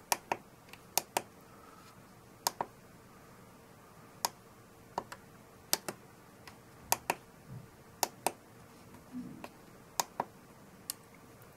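Clicks of the push-buttons on a FrSky Taranis radio transmitter, pressed one at a time at irregular intervals, about twenty sharp clicks, while stepping through a menu list.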